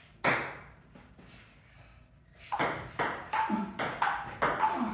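Table tennis rally: the ball clicking off paddles and bouncing on the table. One hit comes about a quarter second in, then a quick run of hits, several a second, from about halfway on.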